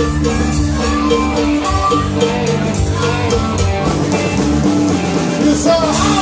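Rock and roll music with guitar and drums in an instrumental passage, with no singing.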